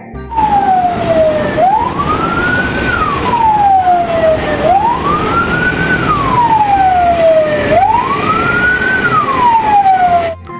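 Vehicle siren wailing: a single tone climbs quickly and slides slowly back down, three times about three seconds apart, over a steady noisy rumble.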